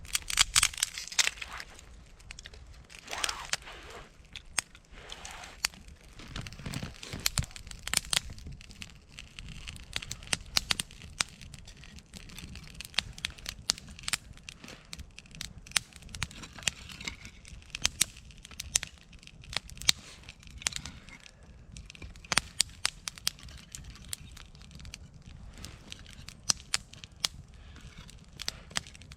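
Campfire of wood crackling, with sharp pops scattered all through. A few louder rustling, crunching noises come near the start and again around 3 and 7 seconds in.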